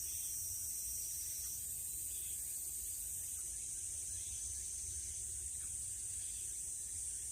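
Steady high-pitched chorus of grass insects such as crickets, with a faint short call repeating about every two seconds.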